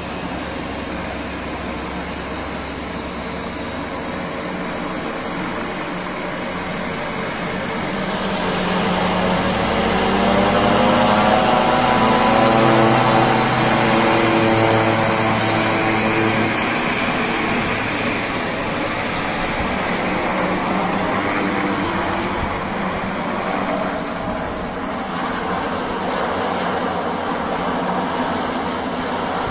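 Twin turboprop engines of a small high-wing airliner running as it taxis and turns on the apron. The propeller drone swells louder about ten seconds in, its pitch gliding slightly, then eases back to a steady run.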